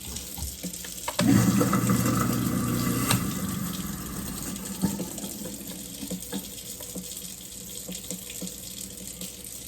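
Water running from a kitchen faucet into the sink, louder for a couple of seconds after about a second in, then easing.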